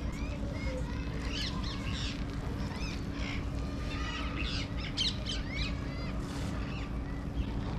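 Birds chirping and calling in quick, overlapping short notes, over a steady low rumble.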